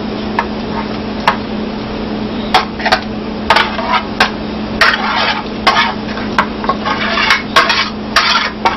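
A metal utensil clinking and scraping against a cooking pot while stirring, in irregular strokes that come more often in the second half, over a steady hum.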